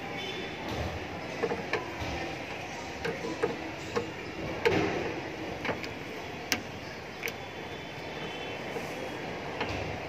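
Screwdriver working the screws of an air conditioner outdoor unit's wire terminal block, giving about a dozen irregular sharp clicks and taps over a steady background noise, the loudest about halfway through.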